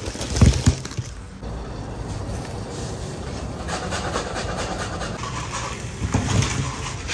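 Tandoor-baked samsa tumbling out of a wire scoop basket onto a wooden board, soft thumps near the start and again about six seconds in, over a steady low background.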